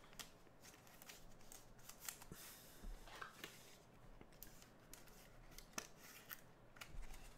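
Faint clicks and soft rustles of thick relic trading cards being handled and slid against one another by hand.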